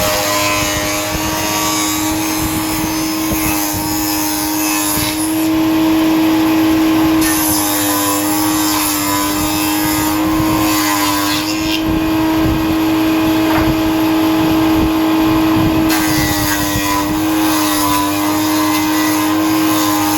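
CNC router machining a door. The spindle gives a steady whine, and cutting noise swells and fades as the bit moves through the material.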